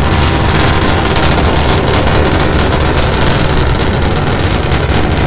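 Starship SN9's three Raptor methane-oxygen engines firing during ascent: a loud, steady rushing noise that does not change.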